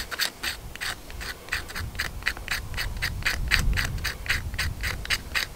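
Knife scraping a stick of fatwood into fine shavings for fire-lighting tinder: quick, even rasping strokes, about four or five a second.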